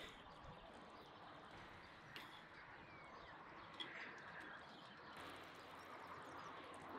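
Near silence: faint outdoor ambience with a few faint, short bird-like chirps.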